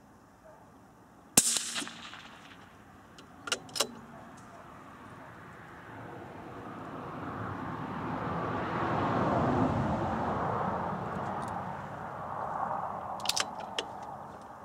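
A single shot from a CZ bolt-action rifle in .17 HMR with a heavy bull barrel, about a second and a half in: a sharp report with a short tail, a test shot over a chronograph that reads 2486 fps. Two quick clicks follow a couple of seconds later, a rushing noise swells and fades through the middle, and a few more sharp clicks come near the end.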